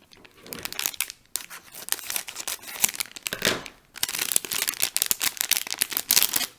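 Foil blind-bag toy packet being torn open and crinkled by hand, an irregular crackling and ripping in two spells with a brief pause between.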